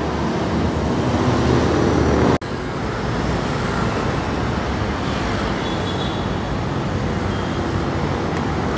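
Road traffic: cars driving past on a busy city road, a steady rumble of engines and tyres. About two and a half seconds in, the sound breaks off for an instant and resumes with less low rumble.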